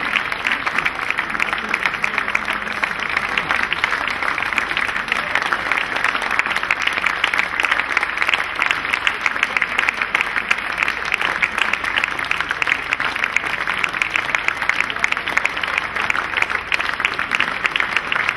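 Audience applauding steadily: dense, even clapping from a large crowd.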